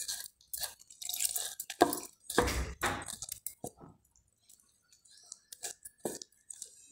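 A hand squishing and kneading wet gram-flour batter in a stainless steel bowl: irregular wet squelching strokes, busiest in the first four seconds, with a couple more near the end.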